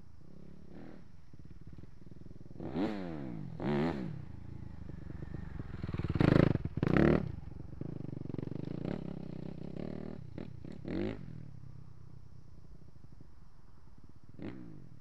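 Suzuki RM-Z250 single-cylinder four-stroke motocross bike riding past. The engine revs up sharply twice about three and four seconds in, is loudest as it passes about six to seven seconds in, then fades into the distance with a few shorter throttle blips.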